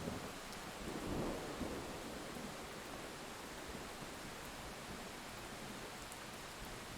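Steady rain falling, with a low rumble of thunder that swells about a second in and fades within a second or so.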